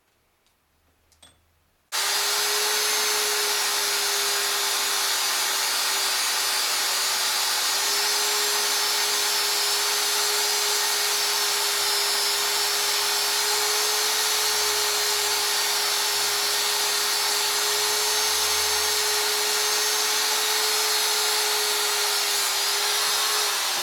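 Handheld rotary tool (Dremel-type) switched on about two seconds in, running at a steady high speed with a constant whine while its small abrasive bit grinds a sewing-machine shuttle. Near the end it is switched off and the whine falls as it winds down.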